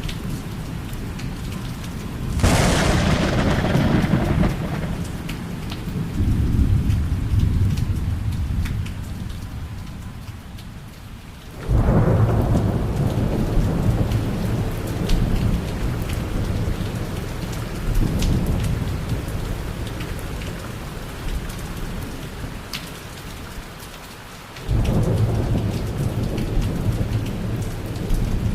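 Thunder in a thunderstorm: three sudden claps, about 2, 12 and 25 seconds in, each rolling on into a long low rumble, over steady falling rain.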